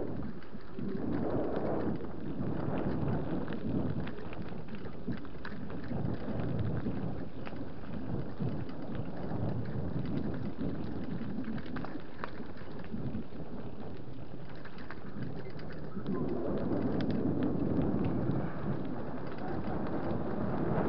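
Low rumble of wind buffeting the microphone while moving, with a steady crackle of gravel being travelled over; it grows louder about sixteen seconds in.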